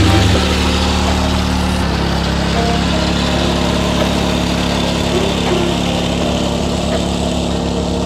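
TruCut C27 gas-powered reel mower's small engine running steadily while mowing, loudest as it passes close at the start, then a little quieter as it moves away.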